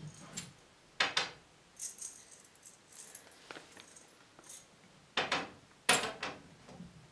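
A few short, sharp rattling shakes of small hard objects in a container, with lighter clicks of handling between them: pills being shaken out of a bottle.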